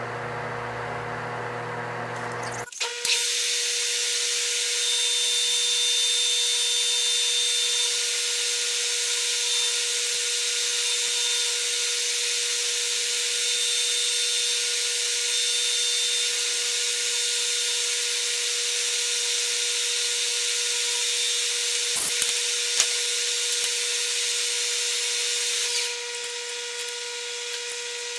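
Metal lathe turning the hub of a small metal part: a steady cutting hiss with a thin high whine that starts sharply about three seconds in and eases off a little near the end.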